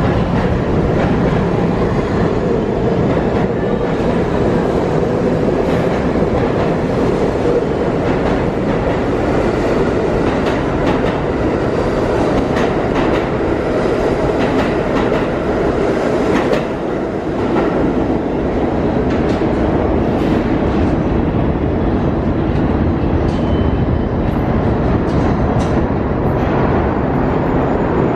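New York City subway train pulling out of an underground station and running into the tunnel: a loud, steady rumble of cars and wheels with a continual clatter over the rail joints.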